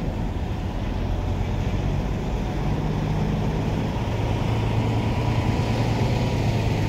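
Heavy diesel container truck engine running steadily and slowly growing louder as the truck backs its flatbed trailer in.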